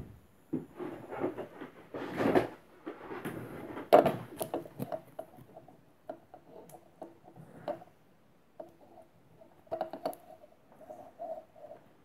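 Hands handling a small silicone cable clip and a thin cable, threading the cable through it: irregular rubbing and rustling with light clicks and knocks, the loudest a sharp knock about four seconds in.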